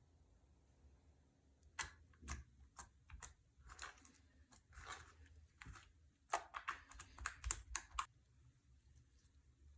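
Clear slime being squeezed and poked by hand, giving sticky clicks and small popping crackles in quick clusters, with short pauses between them.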